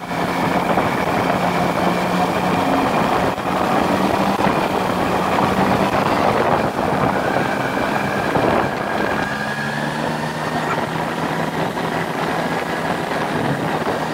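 BMW R1100RT boxer-twin motorcycle engine running steadily under way, under a loud even wash of wind and road noise. The engine note shifts a little lower about nine seconds in.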